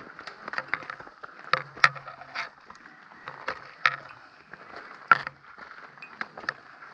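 Footsteps of hikers climbing a trail: irregular sharp knocks and scuffs, roughly one every half second to second, with a few louder knocks.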